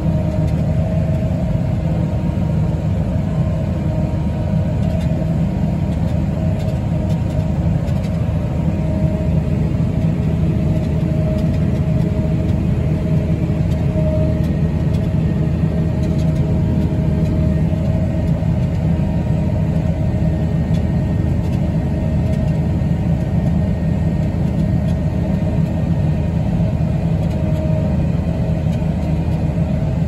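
Steady low rumble of harvest machinery heard from inside a tractor cab, with a faint steady whine over it: the tractor pulling a grain cart and a John Deere combine running alongside, its unloading auger pouring wheat into the cart.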